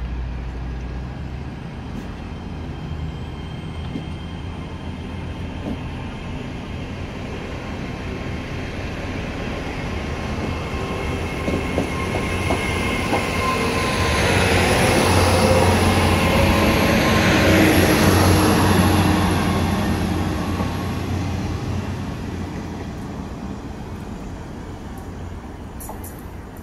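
GWR Intercity Express bi-mode trains running on their underfloor diesel engines as they move through the station. There is a steady engine hum, and a faint high whine that rises in pitch during the first several seconds. The sound grows to its loudest about halfway through as the train passes close by, then fades as it pulls away.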